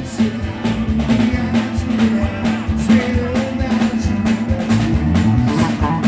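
Live band music: acoustic guitar and drum kit playing a steady beat, with a man singing.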